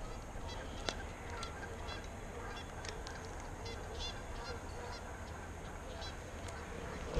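Geese honking repeatedly over a steady low rumble, with a single sharp click about a second in.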